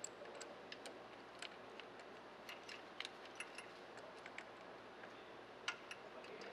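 Faint, irregular metallic clicks and clinks as a steel shackle and its pin are fitted by hand onto a street sweeper's pickup broom lift arm.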